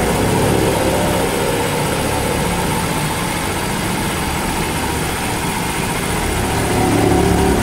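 Honda Monkey minibike's small single-cylinder four-stroke engine idling steadily, getting a little louder near the end.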